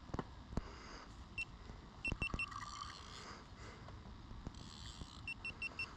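Fishing reel's drag clicking in short high pips as a hooked catfish takes line from the bent rod: one pip, a quick group of three about two seconds in, then a run of about four a second near the end. A few dull knocks of handling sound alongside.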